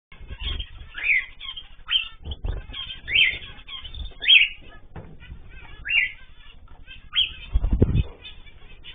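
Pet cage birds (cockatiels, zebra finches and canaries) calling: short rising whistled calls come about once a second over busy chirping and chatter. Several low thumps sound between them, the loudest and longest near the end.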